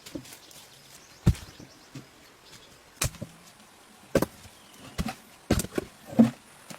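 A series of about six sharp knocks at uneven intervals, typical of work on large timber: wood being struck or chopped. The loudest knock comes near the end.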